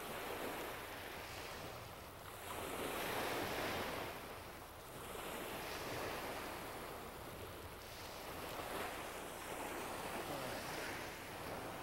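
Small lake waves breaking and washing up on a sandy shore, the surf swelling and fading about every three seconds.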